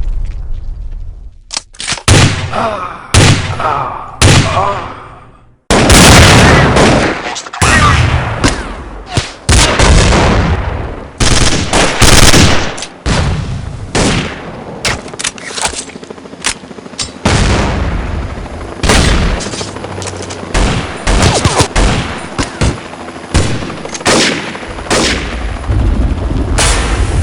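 Gunfire: many loud shots in quick, irregular succession, some in rapid runs like automatic fire, with a brief break about five seconds in.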